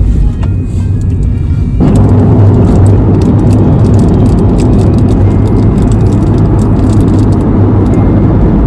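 Loud, steady road and engine drone inside a moving car's cabin, a dense low rumble that grows fuller about two seconds in.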